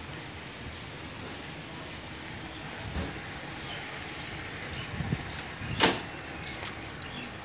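Steady hissing background noise with a few soft low thumps and one short, sharp hiss near the end.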